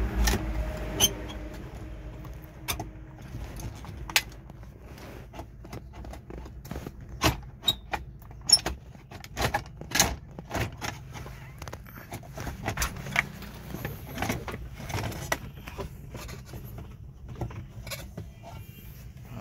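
Hard plastic dashboard trim of an older Honda CR-V clicking, knocking and rattling as the lower dash pocket, with its metal mounting bracket, is worked loose and pulled out, in many irregular sharp clicks.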